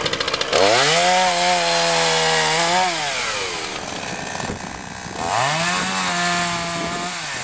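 AMA BG38.14 37cc two-stroke petrol chainsaw running unevenly at idle, then revved hard twice. Each time the engine climbs quickly to a steady high pitch, holds it for about two seconds and drops back.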